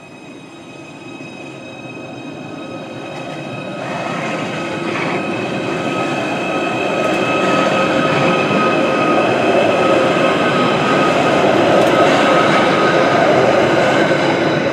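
Merseyrail Class 777 electric multiple unit pulling out and running past close by. A steady electric whine in several tones sits over wheel-and-rail noise, and the whole sound grows steadily louder as the train draws level.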